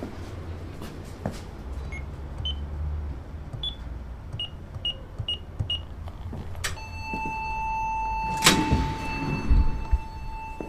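City transit vehicle soundscape: a low rumble and a run of short, high electronic beeps. About two-thirds in, a click starts a steady electronic tone that holds for several seconds, with one sharp knock partway through it.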